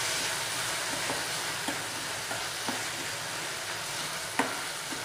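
Chopped vegetables sizzling in oil in a metal kadhai as they are stirred, with a steady hiss and several short scraping clicks against the pan.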